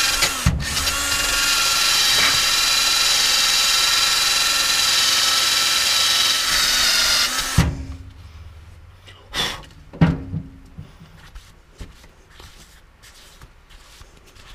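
Ryobi cordless drill spinning a small wire wheel inside a steel cradle-mount sleeve, scouring out leftover glue and plastic. It runs with a steady high whine, dips briefly about half a second in, and stops about seven and a half seconds in. A couple of knocks and quiet handling follow.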